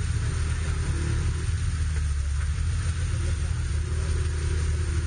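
Jeep Wrangler's engine idling with a steady low rumble.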